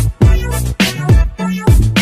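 Background music with a steady beat and deep bass notes that slide down in pitch.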